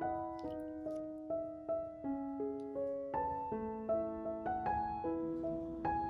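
Background piano music: a melody of single notes struck at an even pace, a few notes a second.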